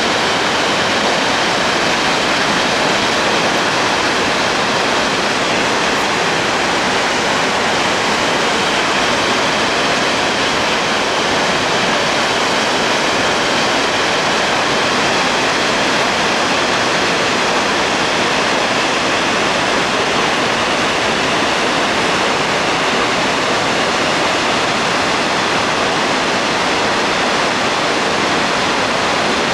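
Heavy flood release from the Ikari concrete gravity dam: a steady, loud rush of water pouring down and crashing below, with no change in strength.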